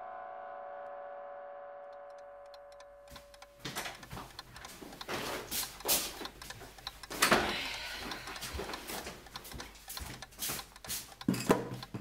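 A sustained musical chord fades out over the first three seconds. Then a wind-up alarm clock ticks among irregular knocks and rustles of someone moving things about, the loudest about seven seconds in.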